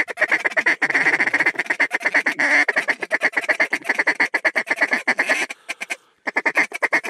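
Duck call blown in rapid, continuous mallard quacks and chatter to bring in circling ducks. It stops briefly about five and a half seconds in, then starts again.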